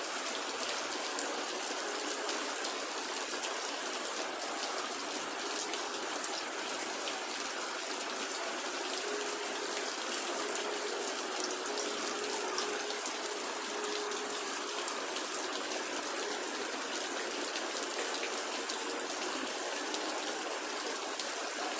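Heavy rain pouring down in a steady, unbroken hiss during a thunderstorm.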